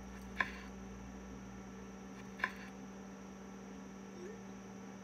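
Kitchen knife slicing cherry tomatoes on a wooden cutting board: two sharp knocks about two seconds apart as the blade strikes the board, over a steady low hum.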